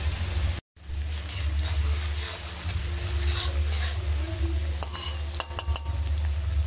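Minced garlic sizzling and crackling in hot oil in an iron karahi, stirred with a metal spatula. The spatula scrapes the pan and gives several sharp clicks against the iron about five seconds in.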